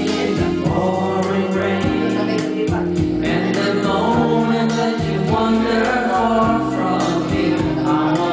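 Music with singing voices over held chords that change every second or so.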